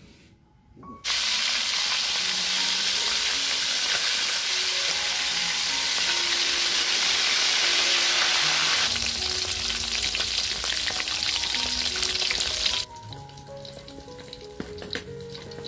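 Small whole fish deep-frying in hot oil in a wok, a loud, steady sizzle that starts about a second in and cuts off suddenly near the end. After it, a wood fire crackles with scattered sharp pops, under faint background music.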